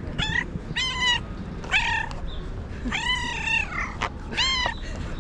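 Domestic cat meowing over and over in quick succession: about five meows, one every second or so, the one about three seconds in drawn out longest.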